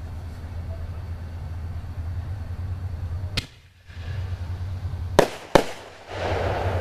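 Fireworks going off: a sharp bang about three and a half seconds in, then two more in quick succession near the end, followed by crackling. A steady low hum runs underneath.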